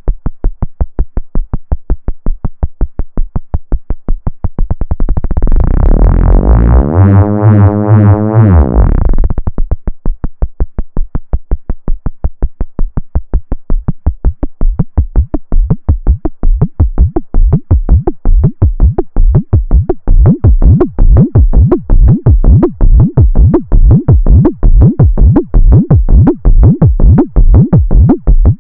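Moog Spectravox analog synthesizer voice playing fast repeating short notes that each die away quickly. About five seconds in, one note is held while the filter sweeps through it, and near the tenth second the short notes resume. Over the second half the filter opens and the notes grow gradually brighter.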